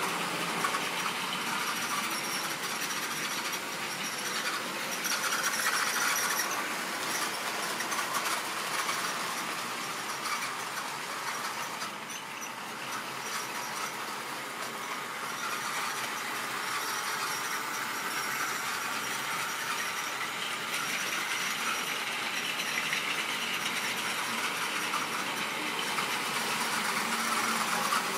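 Model railway train running around the layout out of sight: a steady whirr of the locomotive's motor and its wheels running on the track, getting a little louder and quieter as it goes round.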